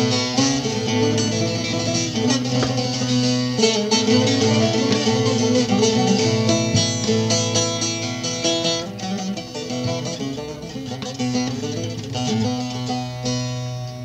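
Bağlama (Turkish long-necked saz) played solo: a quick plucked melody over steadily ringing low drone notes, growing quieter over the last few seconds.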